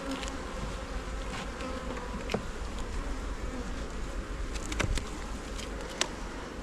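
Honey bees buzzing in a steady hum around an open hive, with a few short clicks and knocks as the hive parts are put back together.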